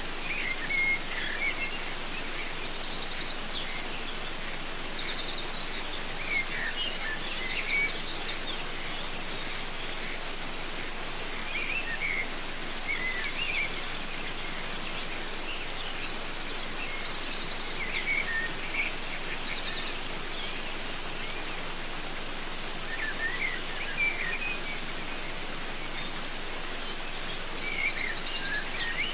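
Waterfall's steady rush of water, with birds calling over it in recurring bouts of short chirps and fast, high trills.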